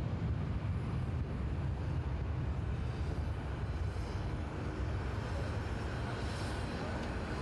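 Airbus A340 airliner's jet engines running as it rolls along the runway, heard from the airfield as a steady low rumble.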